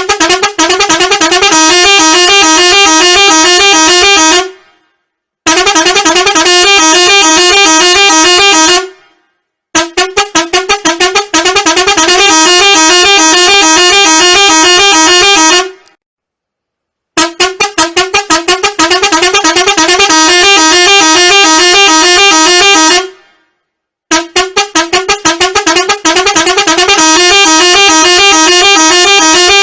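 Very loud electronic wake-up alarm sounding in horn-like blasts of about three to six seconds, with a break of about a second between blasts. Each blast opens with a rapid stutter, then holds a buzzy, fast-warbling tone.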